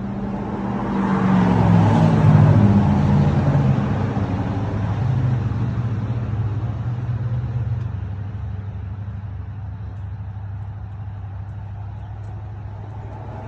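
A motor vehicle's engine grows louder over the first two seconds or so and shifts pitch a few times, then slowly fades away as it drives off.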